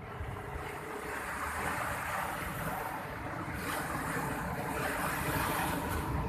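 Sea surf breaking on a beach, swelling about a second in and washing louder from about halfway through, over a low rumble of wind on the microphone.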